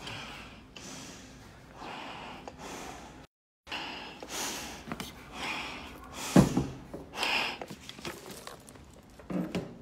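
Firefighter breathing hard through an SCBA face mask, each breath hissing through the mask about once a second, from the exertion of a just-finished 110-floor stair climb in full gear. A sharp thump about six seconds in.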